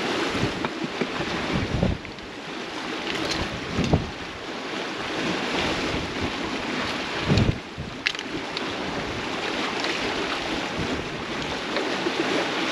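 Wind buffeting the microphone over water rushing past a sailing catamaran's hulls and wake, with a couple of low thumps and a few clicks from handling gear.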